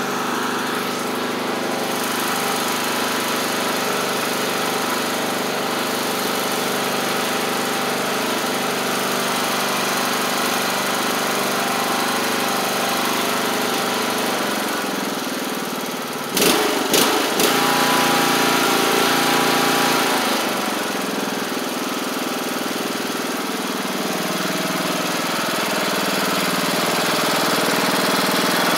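Craftsman LT1500 riding mower's replacement Briggs & Stratton engine running with the mower blades engaged for a test. The engine note shifts a few times, with a short run of sharp knocks about sixteen to seventeen seconds in.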